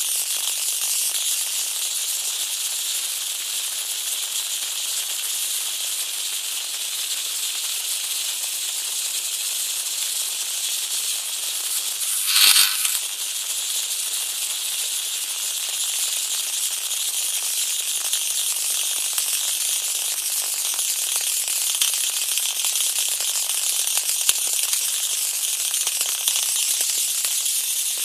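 High-voltage arc from a 150 kV X-ray transformer crackling and hissing steadily across the electrode gap, with one brief, louder burst about twelve seconds in.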